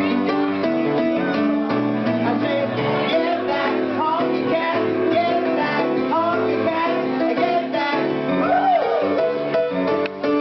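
A woman singing over live piano accompaniment, with several sliding notes in the voice.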